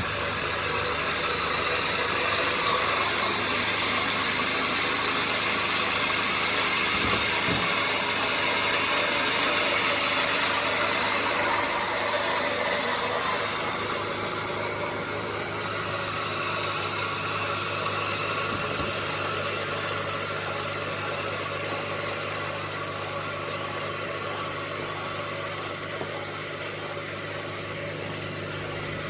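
A truck's engine running steadily under an even rushing hiss. The hiss eases a little about a dozen seconds in.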